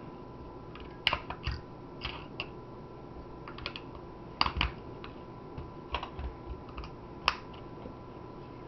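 Irregular small clicks and taps of metal-cased batteries and their sleeves against a plastic TV remote's battery compartment as they are fitted in and handled. The sharpest clicks come about four and a half seconds and seven seconds in.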